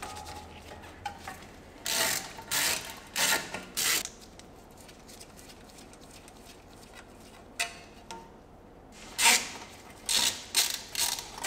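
Hand ratchet with a socket extension backing out the small, corroded brake dust shield screws on a front steering knuckle. Short bursts of ratchet clicking come about two to four seconds in, then stop, and start again in a quicker cluster near the end.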